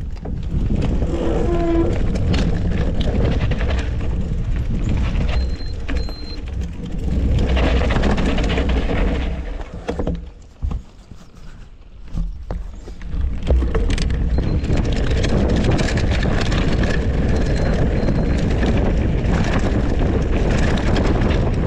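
Mountain bike riding a dirt trail: wind rumbling on the microphone with the tyres and bike rattling over the ground. The noise drops away briefly about halfway through, then picks up again.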